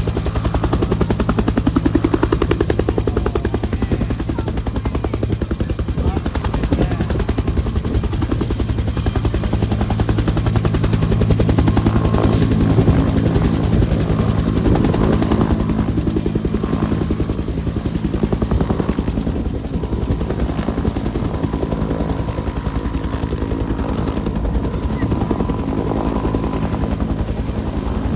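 UH-1 Huey helicopter running at full power, its two-bladed main rotor beating in a rapid, even thud over the steady hum of its turbine. It grows a little louder about halfway through.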